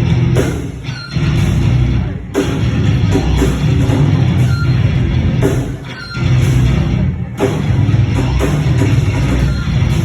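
Metal band playing live: heavy guitar riffing with drums. The band drops out for brief moments about four times.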